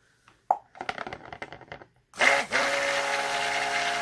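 A knock and some light clattering, then about two seconds in a stick (immersion) blender switches on and runs steadily, mixing green-coloured soap batter in a plastic pitcher.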